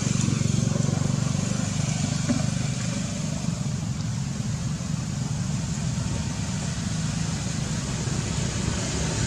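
Steady low rumble of a running motor vehicle engine.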